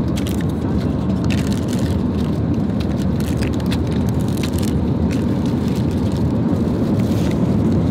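Steady drone of an airliner cabin in flight, with light crinkling and rustling as a paper meal box and plastic-wrapped food are handled.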